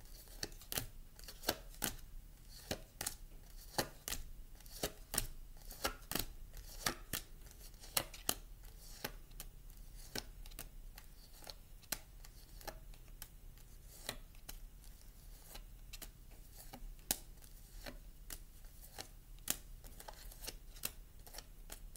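Tarot cards being handled and shuffled: faint, sharp, irregular clicks and snaps, two or three a second, over a low steady hum.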